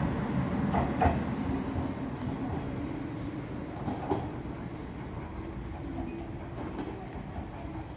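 JR West 105 series electric train pulling away, its running noise fading steadily, with a few sharp clacks of the wheels over rail joints.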